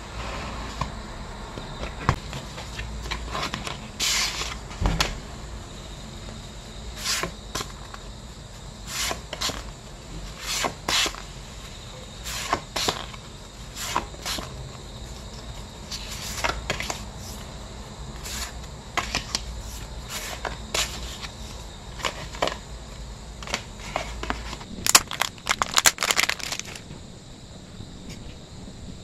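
Glossy photo prints and photocards handled close to the microphone: slid, shuffled and set down, making a string of short, irregular rustles and scrapes, with a quick flurry of them near the end.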